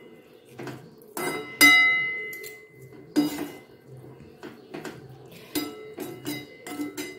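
Steel spoon knocking and scraping against a metal kadai while cooked rice is stirred and tossed, giving about a dozen irregular clinks. The pan rings briefly after the harder strikes, loudest about one and a half seconds in.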